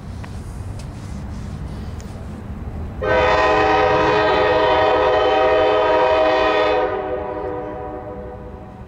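Norfolk Southern freight locomotive's air horn sounding one long blast of about four seconds, a chord of several steady tones, starting about three seconds in over a low rumble from the approaching train.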